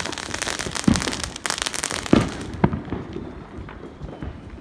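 Fireworks going off: dense crackling through the first two seconds, with sharp bangs about one, two and two and a half seconds in.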